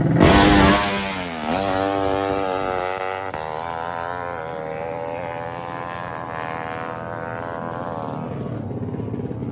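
Drag-racing motorcycle launching off the start line at full throttle. The revs dip at a gear change about 1.5 s in and climb again through the gears, fading as the bike pulls away down the strip.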